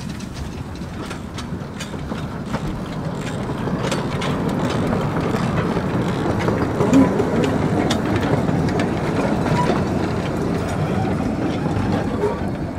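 Kerr Stuart 0-4-0 saddle tank steam locomotive and its passenger carriage running past, growing louder as the engine draws level about halfway through, with clicking of wheels on the rails.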